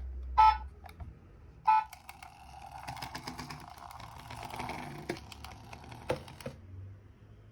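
Bus-shaped toy alarm clock sounding two short electronic horn beeps about a second apart, followed by several seconds of rapid mechanical clicking and whirring from the toy, ending in a few sharper clicks.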